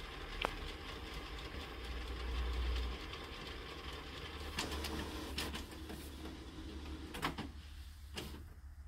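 Canon TS5120 inkjet printer's mechanism running as it starts a print job: a steady whirring hum with a few sharp clicks, winding down near the end.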